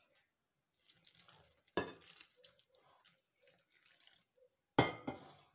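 Slightly warmed water poured in a thin stream into a glass bowl of flour, trickling and soaking in. Two sharp knocks, one about two seconds in and a louder one near the end.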